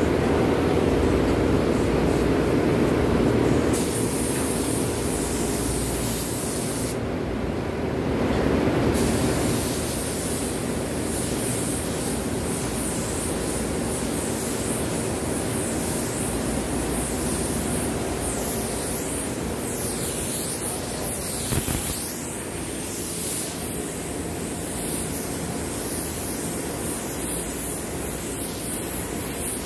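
Compressed-air paint spray gun hissing as paint is sprayed onto a tabletop. The spray starts about four seconds in, breaks off for a couple of seconds as the trigger is released, then runs again, over a steady low hum that fades after about nine seconds.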